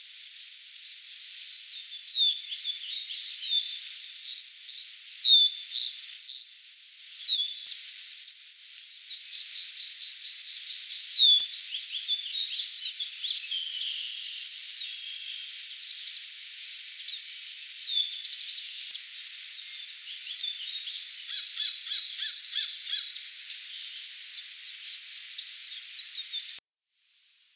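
Small birds singing and chirping: repeated short, high chirps that hook downward, with bursts of rapid trills around the middle and near the end. The sound cuts off abruptly near the end.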